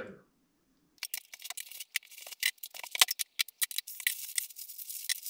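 Plastic packaging crackling and rustling as it is handled, a dense run of sharp, irregular crinkles starting about a second in.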